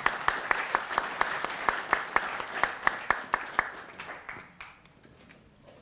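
Audience applauding, with one set of louder, close claps at about four a second standing out over the crowd's clapping. The applause fades out about four seconds in.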